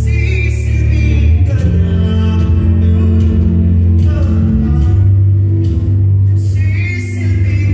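Loud amplified live music with heavy bass, guitar and a singing voice, heard through a venue's speakers from the audience.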